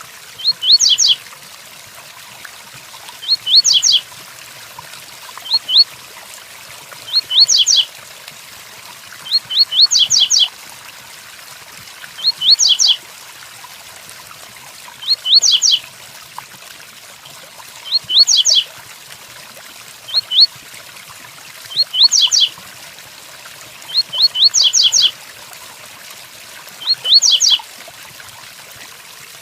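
Coleiro (double-collared seedeater) singing its 'tui tuí' song: short phrases of two to four quick rising whistles, repeated about every two to three seconds. Under them runs a steady hiss of rain.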